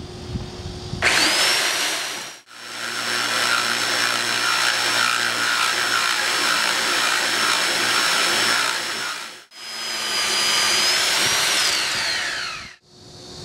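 AGP TC402 two-speed tile core drill (650 W) in second gear, spinning up with a quickly rising whine about a second in, then running with a steady high whine as its 20 mm diamond core bit cuts wet into tile. The sound breaks off abruptly twice. Near the end the motor winds down with a falling whine and stops.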